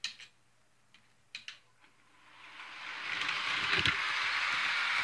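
Bachmann HO-scale model diesel locomotive running along the track. After a few light clicks, its motor and wheels make a steady whir that swells from about two seconds in as it comes near.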